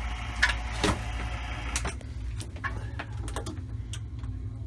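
Vacuum pump running with a hiss, then switched off about two seconds in to let the air back into the vacuum chamber; a low hum stays and several clicks follow as the machine's controls are worked.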